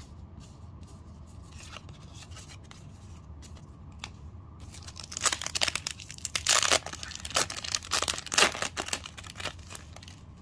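Yu-Gi-Oh! foil booster pack being handled and then torn open by hand. Faint rustling gives way about halfway through to a run of loud tearing and crinkling that lasts about four seconds.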